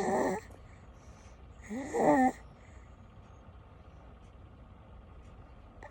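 Six-month-old baby snoring: two loud, pitched snores, one at the start and one about two seconds in, then quiet breathing.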